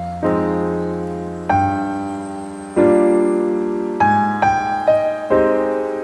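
Background piano music: slow chords struck and left to ring out, a new chord about every second and a quarter, coming quicker near the end.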